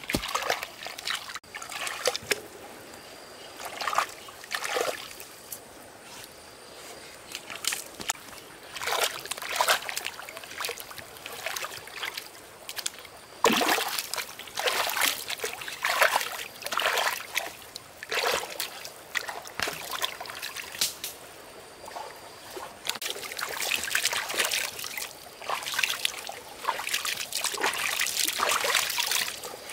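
Shovel scooping wet mud in a shallow stream, with water sloshing and splashing in irregular bursts around the digging. Near the end, hands splash the water.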